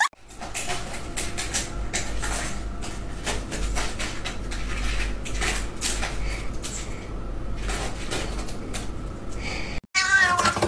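Domestic cat meowing and yowling over a noisy, low-rumbling home recording with scattered sharp clicks; after a cut near the end, a cat gives a short wavering call.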